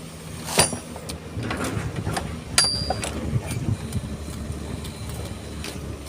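Heavy excavator diesel engine running steadily, with two sharp metallic clanks that ring briefly, about half a second and two and a half seconds in, and a few lighter knocks from the bucket and its load.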